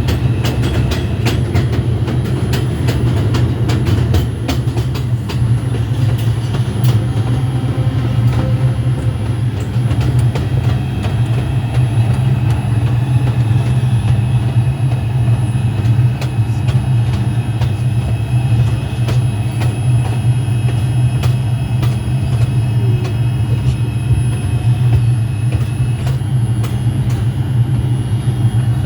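R142 subway train running along the track: a steady low rumble with sharp clicks, many in the first several seconds and fewer after.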